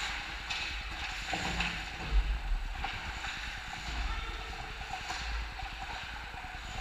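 Ice hockey play: skate blades scraping and hissing on the ice, with several short clacks and knocks of sticks and puck, over a steady low rumble of the rink.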